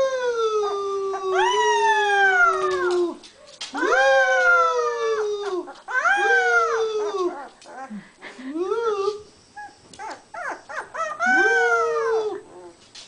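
A man and a puppy howling together: about five long howls that each rise and then slide slowly down in pitch, with the puppy's higher howl often overlapping the man's lower one.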